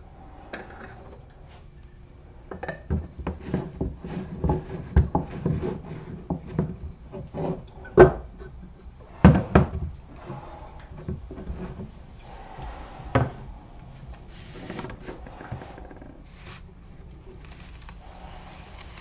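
Workshop handling noises: a busy run of light knocks, clicks and rubbing as wooden cut-outs and tools are moved about on the bench, with a few sharper knocks about eight, nine and thirteen seconds in, then softer rustling.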